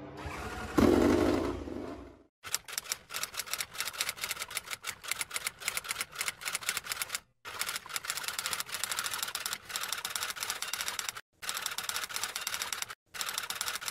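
Rapid typewriter key clatter, one keystroke after another in quick runs broken by three short pauses. It is preceded about a second in by a short loud swell of a logo sting.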